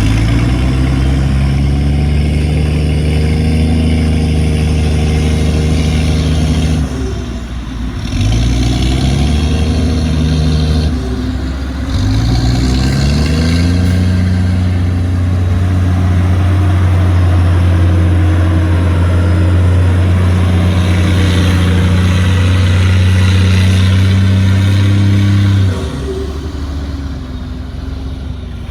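Heavy diesel engine of an earthmoving machine running hard under load. The revs sag and climb back about a quarter of the way in and again shortly after, hold high for a long stretch, then drop off near the end.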